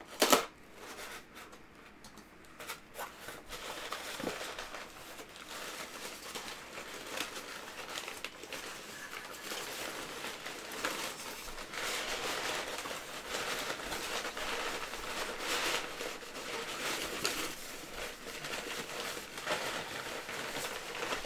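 A box cutter slits the packing tape on a cardboard box with one sharp snap at the start. Then the box's wrapping is pulled out, rustling and crinkling in a long irregular stretch.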